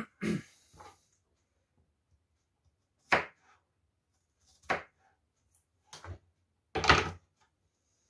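About half a dozen short, scattered knocks and thumps from handling a raw chicken on a plastic cutting board, the loudest and longest near the end.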